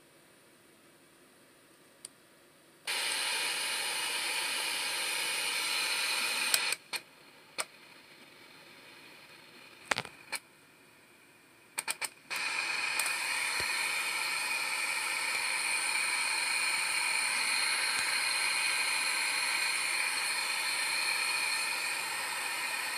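Radio static hissing from a communications service monitor's receiver speaker. It comes on about three seconds in, breaks off for several seconds among a few sharp clicks, then returns and holds steady.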